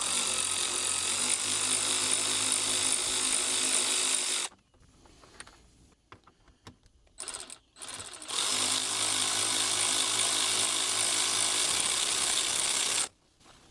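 Power driver with a 10 mm socket spinning bolts out, in two steady whirring runs of about four to five seconds each, with a pause of a few seconds between them.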